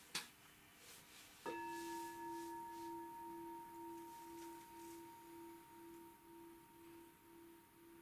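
A meditation bowl bell struck once about a second and a half in, ringing on with a low, slowly pulsing hum and a clear higher tone that fade gradually. A single sharp click comes just before it.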